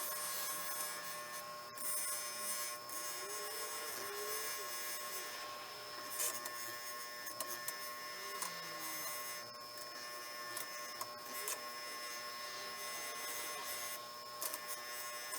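Motor-driven fiber polishing wheel running with a steady whine while a steel pry bar shaft is held against it to shine it.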